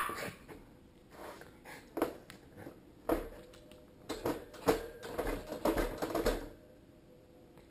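A dog pawing and nosing at a plastic hamster cage: irregular taps, scrapes and rattles. They are sparse at first and come thick and fast from about three to six and a half seconds in.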